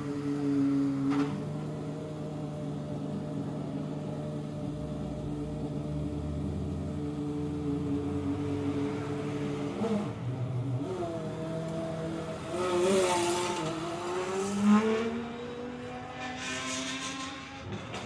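Pagani Huayra R's naturally aspirated V12 engine idling steadily, then, after about ten seconds, blipped a few times so that its note rises and falls.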